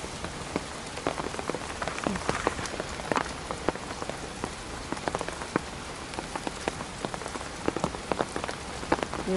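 Heavy rain falling steadily, with separate drops striking an umbrella close overhead several times a second.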